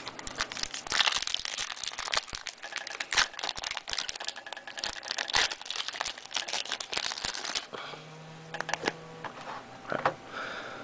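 Basketball trading-card pack wrapper crinkling and cards being handled: a dense run of crackles for about eight seconds, then only a few clicks near the end.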